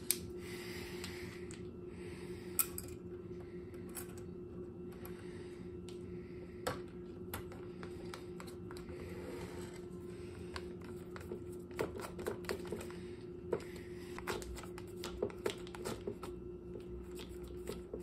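A hand screwdriver turning tiny Phillips screws into a plastic headlight projector bracket: scattered small clicks and ticks that come thicker in the second half, over a steady low hum.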